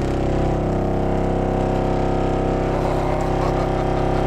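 15-inch subwoofer in a sealed, unported welded steel box playing a steady low test tone from a frequency generator, a loud buzzing drone with many overtones.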